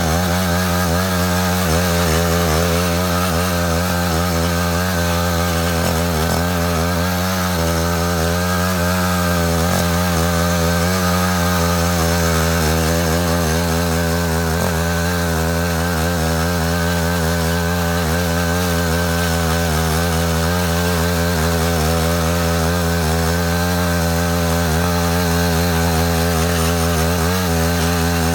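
Matsuda walk-behind tractor's small engine running steadily while it cuts a ditch, its pitch wobbling slightly.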